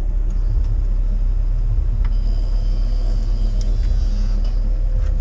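Steady low rumble with a faint steady hum above it.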